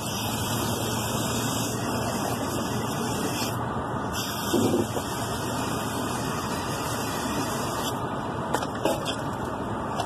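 Rinse water from an evaporator coil wash pouring in a stream out of a rooftop unit's condensate drain and splashing onto the roof, a steady rushing sound, with a brief louder splash about halfway through.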